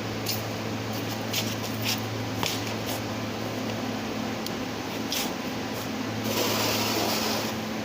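Scattered light clicks and taps, typical of hand tools working on a truck's EGR assembly, over a steady low hum. About six seconds in there is a hiss lasting just over a second.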